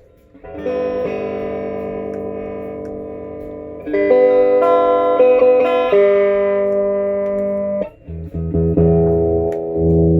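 Guitar chords played through a 1960s Sano amplifier to test it after repair, each chord strummed and left to ring and slowly fade. A chord comes in about half a second in, louder ones change near four and six seconds, and after a brief break lower chords start near eight seconds.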